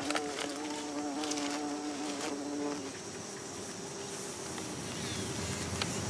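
Trigona fulviventris stingless bees buzzing as they fly out of their nest entrance, a steady hum that stops about three seconds in and gives way to a fainter one. A few short crackles sound over it.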